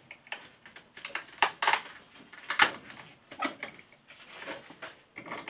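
A power-supply coil being crushed in a bench vise: a string of sharp cracks and clicks at irregular intervals, the loudest about two and a half seconds in.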